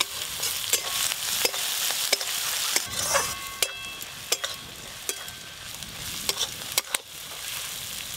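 Onion, ginger-garlic paste and ground spices sizzling in hot oil in a metal wok, with a metal spatula stirring and scraping against the pan in repeated clicks.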